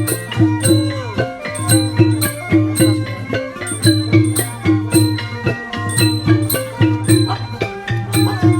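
Background music with a steady percussive beat, a repeating bass line and a plucked melody.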